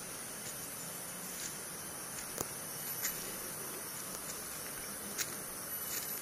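Forest insects calling in a steady, high-pitched chorus, with a few short sharp clicks or snaps scattered through it.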